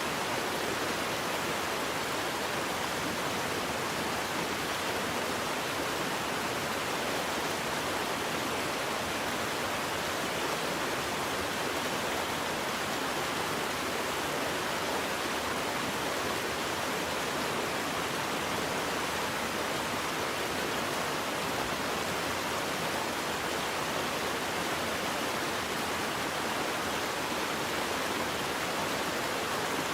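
Waterfall: a steady, even rush of falling water with no changes.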